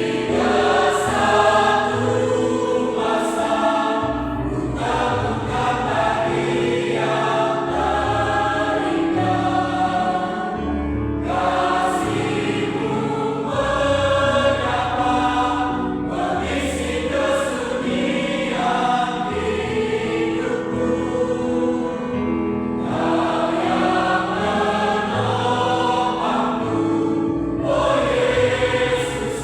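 Mixed choir singing a gospel hymn in parts over a low instrumental accompaniment.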